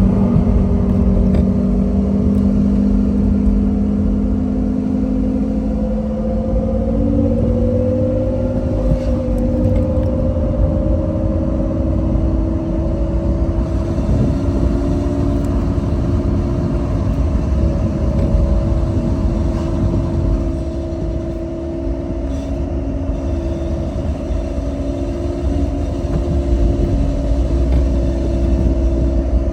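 Honda S2000 (AP1) on the move, with a whine from the driveline over the engine and road rumble; the whine's pitch climbs slowly over the first half, then holds steady. It follows road speed, and the owner takes it for a chipped or blown differential.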